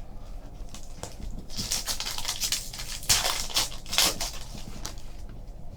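Trading cards and a pack wrapper being handled: crinkling and rustling, with denser spells of rustling near the middle.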